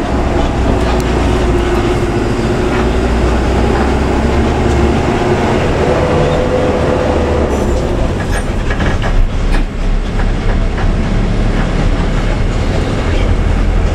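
Bus engine and cabin noise heard from inside the moving bus: a steady low drone with a whine that steps up in pitch about halfway through, and the body and fittings rattling a little past the middle.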